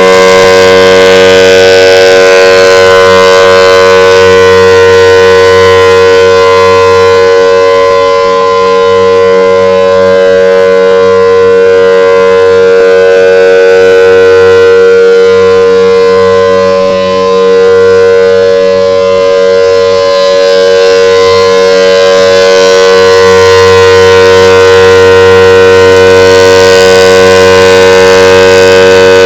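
Federal Signal Thunderbolt outdoor warning siren sounding at full speed during a test: a very loud, steady held tone that keeps one pitch, with slight dips in loudness now and then.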